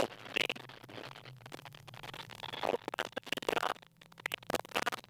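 Cabin noise of a Mitsubishi Lancer Evo X rally car at speed on a snowy stage: irregular scratchy crackles and clicks over a low hum, picked up by the crew's intercom microphone.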